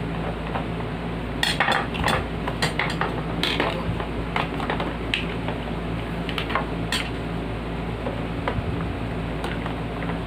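Metal parts and tools clinking and clattering as they are handled during work on a box fan: a run of sharp clicks for about five seconds, starting a second and a half in, over a steady low hum.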